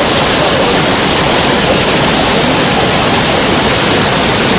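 Waterfall rushing in a steady, loud, unbroken roar of falling water.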